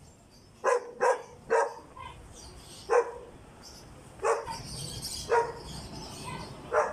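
A dog barking, about seven single barks at uneven intervals.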